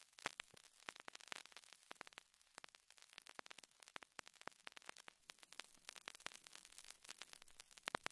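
Faint, irregular crackling: dense scattered clicks over a soft hiss, like static.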